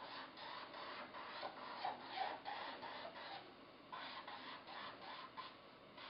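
Black felt-tip marker rubbing and scratching on paper in short, quick strokes, several a second with brief pauses, as it draws scalloped cloud outlines.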